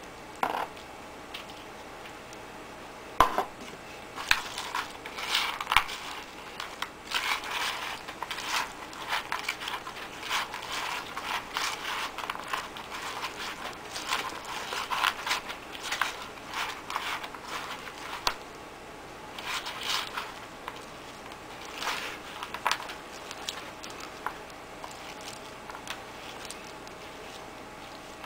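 Hands mixing and squeezing fishing-bait worms with gravel and gum arabic glue in a plastic bait box: irregular crunching and rustling of the gritty mix. A sharp knock about three seconds in is the loudest sound.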